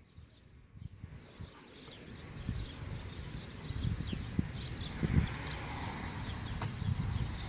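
Birds chirping over and over, with an uneven low rumble underneath; the chirping starts about a second in.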